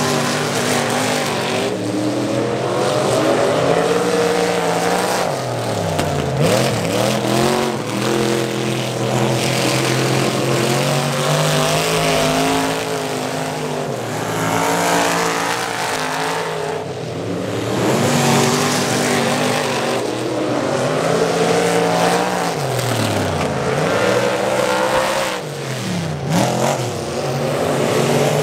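Several dirt-track figure-8 race car engines running hard on the track. Their pitch climbs and falls as the cars accelerate and lift, with a few sharp downward swoops as cars go by.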